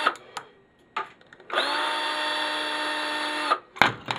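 Power drill-driver with a small bit running in a burst of about two seconds, spinning up at the start, while screws are backed out of a printer. Separate clicks come before it, and a clatter of plastic and metal parts being handled comes near the end.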